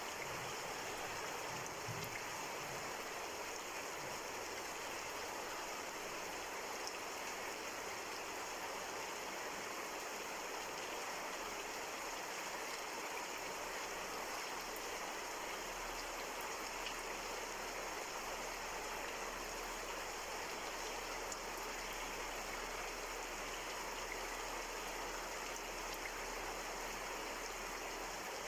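Steady rain falling, a continuous even hiss of raindrops.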